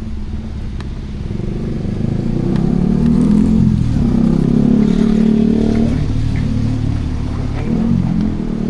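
A motor vehicle's engine passing by, growing louder about two seconds in and fading again near the end.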